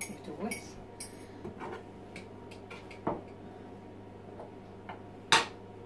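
A fork clinking and scraping against a mug and a measuring jug as beaten egg is scraped out and whisked into milk: a few scattered light taps, with one sharper click near the end.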